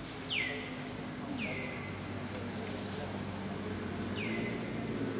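A bird calling three times in the trees, each call a quick high note sliding downward, over a steady low hum of outdoor ambience.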